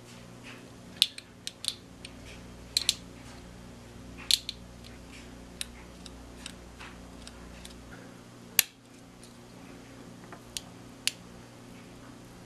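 Small screwdriver clicking on the screws and plastic frame of a Hubsan X4 micro quadcopter as the bottom screws are backed out: scattered sharp clicks at irregular intervals, over a steady low hum.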